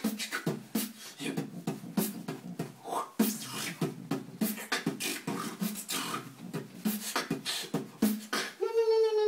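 A person beatboxing: a steady rhythm of sharp mouth clicks and short vocal sounds, ending in a long held note that falls slightly in pitch.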